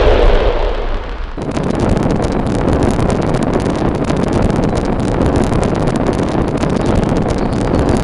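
A loud explosion-like blast fading over the first second, followed by a dense, continuous crackling rumble.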